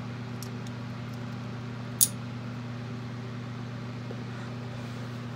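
Electric fan running with a steady hum. Small metal clicks come from a pick working at a ratchet head, the loudest a single sharp click about two seconds in.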